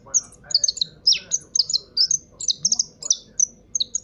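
Caged finch kept as a call bird (llamador), singing a rapid, continuous run of short, high chirps and trills that stops just before the end.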